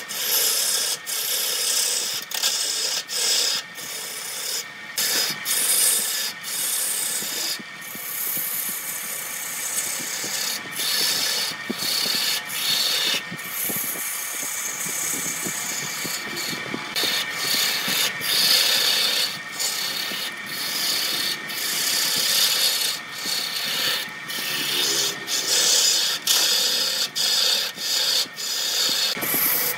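Wood lathe turning a wooden cylinder while a hand-held turning tool cuts into it: a continuous scraping hiss of the edge peeling off shavings, broken by short gaps every second or so as the tool comes off the wood. A faint steady whine runs underneath.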